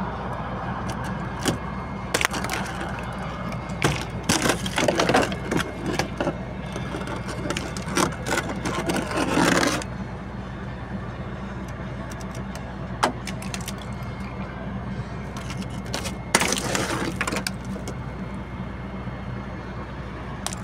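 Fingers scraping and breaking thick frost off a truck's window frame and side mirror, heard as crackling, scratching bursts with sharp clicks, over a steady low hum. The bursts run from about two seconds in to about ten seconds, then come again briefly near the end.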